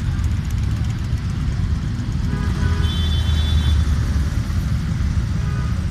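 Several large cruiser motorcycles riding slowly past in a group, their engines running with a steady low rumble. A faint higher tone rises above the rumble about halfway through.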